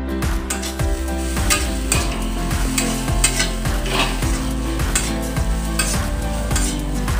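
Flat metal spatula stirring and scraping poha (flattened rice) around a metal kadai over heat, with a light frying sizzle. The scrapes come in short strokes about twice a second.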